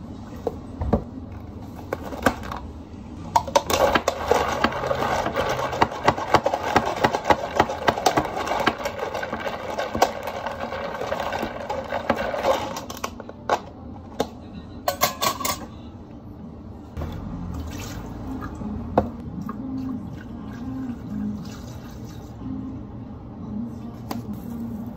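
Ice clattering and scraping inside a tall plastic cup as an iced drink is stirred with a long spoon, a dense rapid rattle for about nine seconds. Before it milk is poured over the ice, and near the end milk is poured from a carton into a plastic blender jug.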